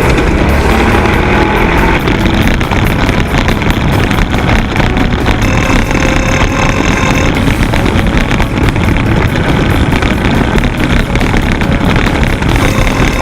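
Off-road race vehicle engines running hard, loud and steady.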